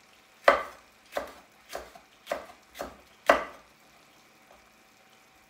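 Kitchen knife chopping green onions on a wooden cutting board: six sharp chops about half a second apart, then they stop.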